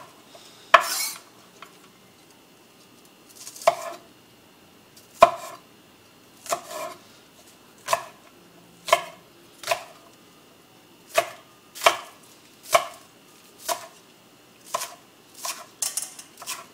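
Kitchen knife chopping on a cutting board in slow, separate strokes, about one a second, with a few quick double strokes.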